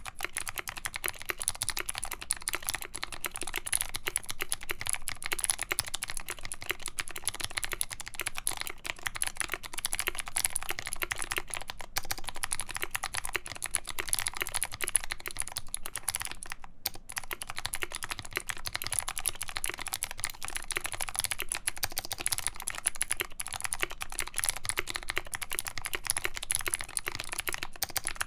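Fast, continuous typing on a KBD75v2 mechanical keyboard with a full brass plate, lubed Kailh Speed Gold clicky switches and PBT keycaps: a dense stream of crisp key clicks, with a brief pause about 17 seconds in.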